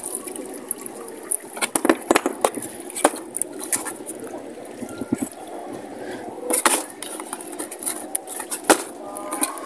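Plastic water tub being handled inside a wooden-framed wire-mesh bird cage: scattered knocks and clicks of plastic against wood and wire, with rustling between them.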